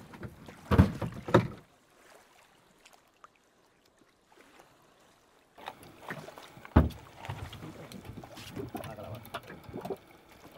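Dull knocks and thumps aboard a small fishing boat: two about a second in and a louder one near the middle, with a few seconds of near silence between. Low, uneven handling and water noise follows the middle thump.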